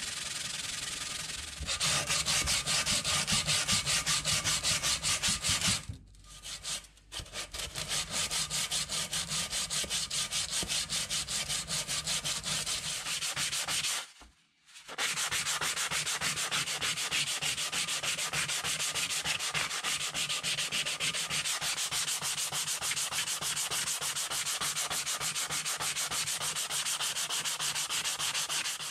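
Hand sanding the rusty metal canister of a vintage hand-crank ice cream maker with sandpaper to take off the rust: quick, steady back-and-forth scratchy strokes, with two short breaks about six and fourteen seconds in.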